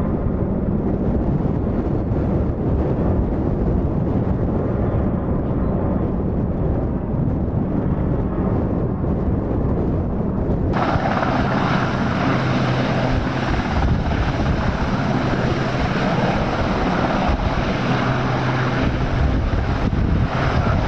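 A helicopter flying at a distance, its rotor sound steady with wind on the microphone. About halfway through, the sound switches abruptly to the much nearer and brighter sound of a Westland Sea King's twin turbines and rotor as it hovers low, with a steady low hum underneath.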